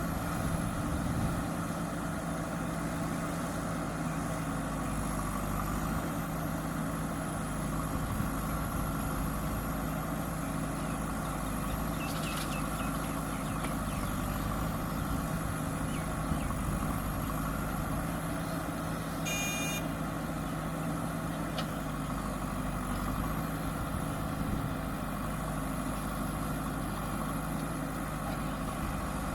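JCB backhoe loader's diesel engine running steadily, with a brief high-pitched ringing tone about two-thirds of the way through.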